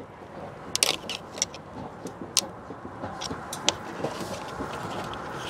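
Flathead screwdriver prying at the plastic locking tabs of the PCM's wiring connectors: a scatter of sharp plastic clicks and scrapes, bunched about a second in and again around two and a half to four seconds in.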